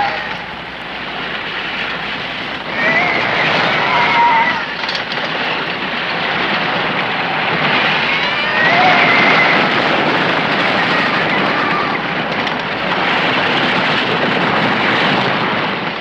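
Roller coaster train running along its track, a continuous loud rushing noise, with riders screaming several times: about three and four seconds in, and again around nine and eleven seconds. The rush fades out at the very end.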